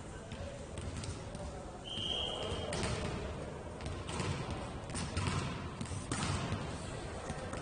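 Ball play in a sports hall: a ball thuds several times as it is kicked and bounces, and a referee's whistle gives one short blast about two seconds in.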